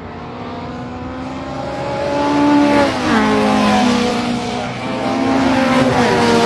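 Race car engine running at high revs, growing louder, its pitch dropping in a step about three seconds in and rising again near the end.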